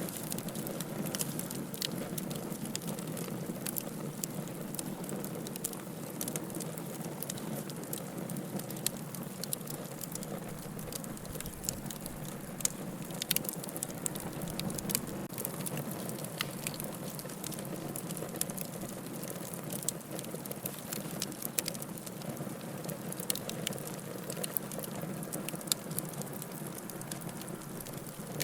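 Fire burning: a steady rushing hiss with frequent sharp crackles and pops at irregular intervals.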